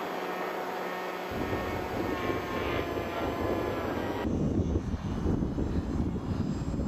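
Bixler RC model plane's electric motor and propeller whining steadily, with wind buffeting the microphone from about a second in. About four seconds in, the whine cuts off suddenly and only the uneven rumble of wind is left.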